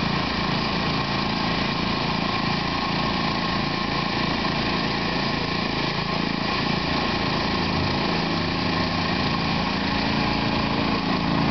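Portable gasoline generator engine running steadily, an even drone with a low hum that wavers slightly.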